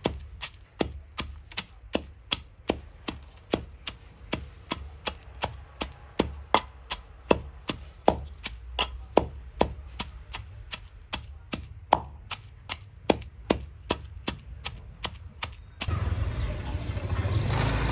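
Knife chopping on a cutting board, about three even strokes a second. Near the end it cuts off suddenly into a steady noise with a low hum.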